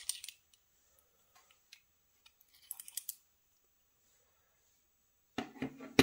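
Light metallic clicks and scrapes from a Gege AP3000 lock cylinder as its plug is slid out of the housing with a key follower. There is a short cluster of clicks about halfway through and a louder group of knocks and clicks near the end.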